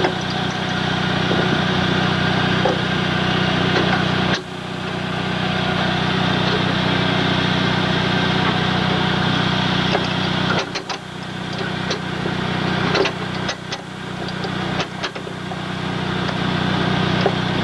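Vehicle engine idling steadily, with a run of sharp clicks and knocks in the second half.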